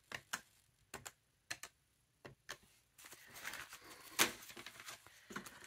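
Plastic desk calculator keys pressed, a handful of separate clicks, then a stack of paper banknotes rustling as it is handled, with one sharp snap about four seconds in.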